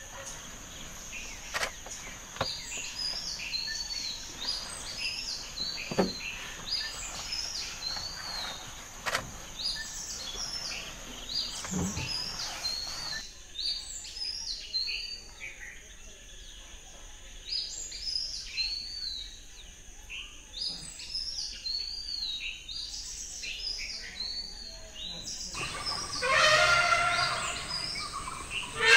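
Forest ambience: a bird repeating a short chirp that rises and falls, about twice a second, over a steady high insect buzz. A louder sound with several tones comes in near the end.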